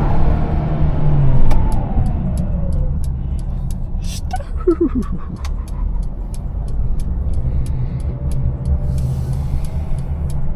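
Twin-charged Mercedes engine heard from inside the cabin, finishing a short full-throttle pull and then easing off, its note falling over the first few seconds before settling into a steady low rumble while cruising. From about a second and a half in, a light steady ticking runs beneath it at roughly three a second.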